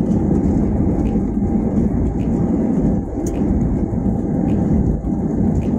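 Steady roar of an IndiGo Airbus A320-family jet rolling out on the runway after touchdown with its ground spoilers up, heard from inside the cabin: engine and wheel rumble, with faint ticks about once a second.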